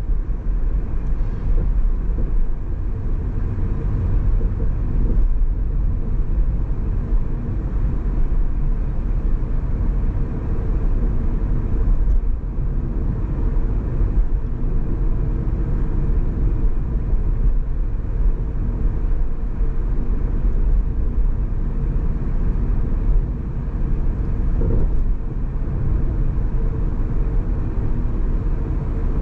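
Car driving along, a steady low rumble of road and engine noise.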